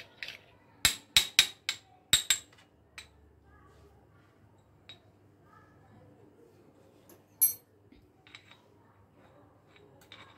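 Metal spoon clinking against a small glass bowl while stirring sauce: a quick run of sharp clinks about a second in, then occasional lighter taps, with one ringing chink about three-quarters of the way through.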